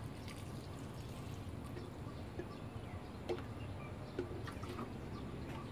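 Water trickling, with a few separate drips.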